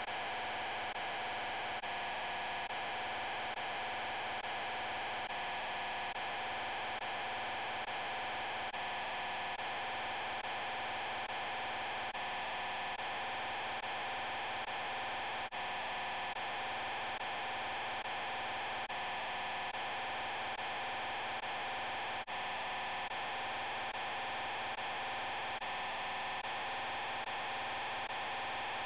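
The "I'm Peppa Pig" voice clip layered over itself a huge number of times, blurred into a steady, hum-like wash of noise in which no words can be made out. It drops out very briefly twice, about halfway and about three-quarters through.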